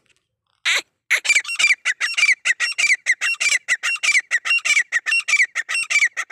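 A partridge calling: one harsh note, then a fast, even run of loud squawking notes, about five a second, each sliding slightly down in pitch.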